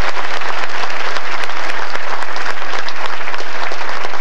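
Large audience applauding, many hands clapping at once in a dense, continuous clatter.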